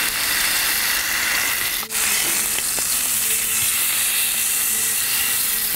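Beef steak sizzling as it sears in hot olive oil in a frying pan: a dense, steady hiss that drops out briefly about two seconds in.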